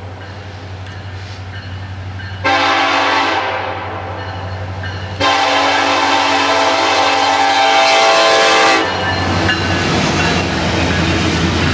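Air horn of an approaching EMD diesel freight locomotive sounds two blasts over the low rumble of its engines. The first, shorter blast starts about two and a half seconds in and the second, longer one lasts about three and a half seconds. Near the end the lead locomotives pass close by, with loud engine and wheel-on-rail noise.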